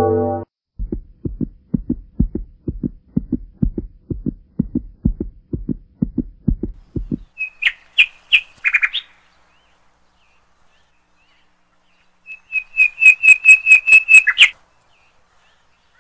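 A steady run of low thuds, about three a second, for roughly six seconds, then short bursts of high bird-like chirping: a brief cluster, and later a rapid run of about a dozen chirps.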